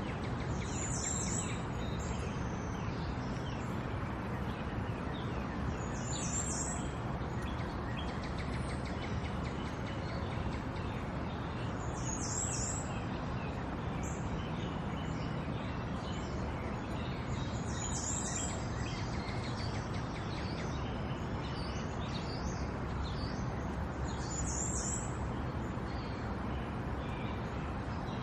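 Birds chirping over a steady rush of running water. One bird gives a short, high call about every six seconds, with fainter chirps in between.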